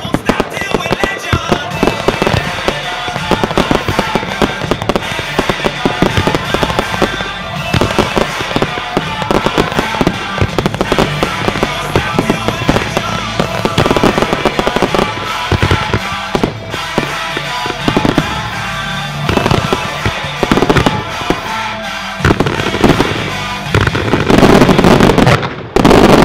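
Fireworks display: rapid bangs and crackle from aerial bursts and ground-fired comets over music, building to a dense, loudest barrage near the end.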